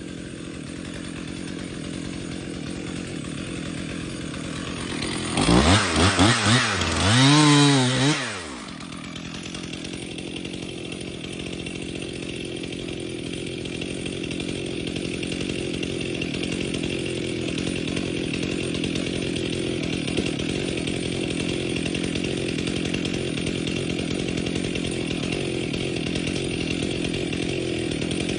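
Two-stroke chainsaw of about 60cc running steadily, revved hard in a few quick bursts about five seconds in, then settling back to a steady run.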